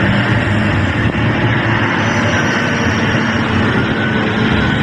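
Komatsu mining haul truck driving slowly, its large diesel engine running steadily with a deep hum. A faint high whine rides over it from about two seconds in.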